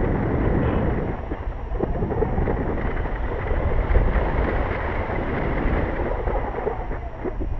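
Airflow from a paraglider in flight buffeting the camera's microphone: a loud, low rush of wind noise that swells and eases unevenly.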